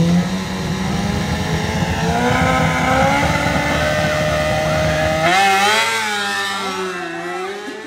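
Superbike launching down the drag strip, its engine note climbing steadily under full acceleration. About five seconds in the engine sound drops away and music with a wavering melody takes over.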